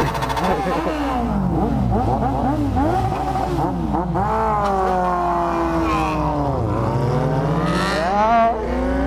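Several four-cylinder sport motorcycles revving hard at once, several engines at different pitches. Quick repeated throttle blips come first, then long climbs and drops in revs, with one deep dip about two-thirds of the way through before they climb again.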